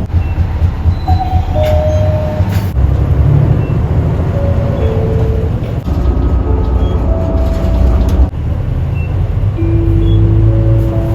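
Hiroden bus on-board melody playing inside the cabin: a slow tune of single held notes, faint under the loud, steady low rumble of the bus running. The lowest and longest note comes about ten seconds in.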